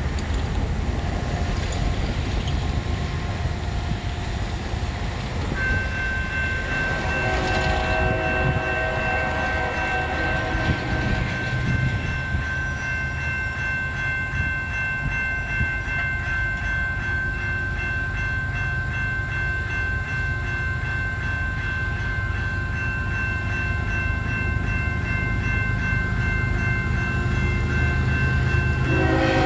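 Freight train approaching from a distance behind two Kansas City Southern diesel locomotives, a steady low rumble, with a distant horn sounding from about six seconds in.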